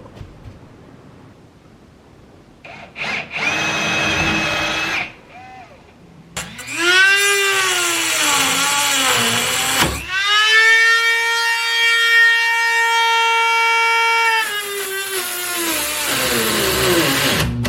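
A power tool cutting a hole in drywall, running in a pitched whine that rises and falls, then holds steady for about four seconds before dropping away.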